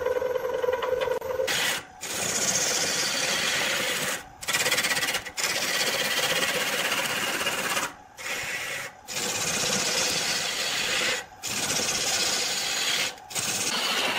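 A turning gouge cuts into a log spinning on a wood lathe, giving a steady rough cutting noise as shavings come off. The noise breaks off abruptly for a moment several times.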